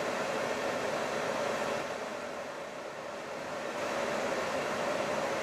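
Steady engine and road noise inside the cab of a Hino Profia truck on the move, with a steady hum, easing slightly about halfway through.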